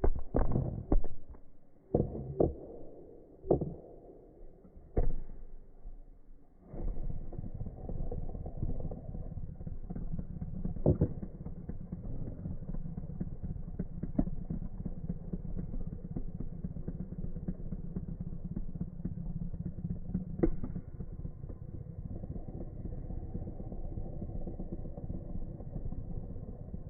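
A series of sharp clicks and knocks as the fidget spinner is handled, then a steady low whirring as it spins on its bearing, with an occasional single click.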